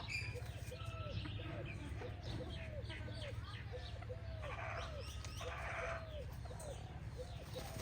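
Free-range chickens calling: a steady run of short, low rising-and-falling calls about twice a second, with high, downward-sliding peeps over them. There is a steady low hum underneath, and two short bursts of noise come around the middle.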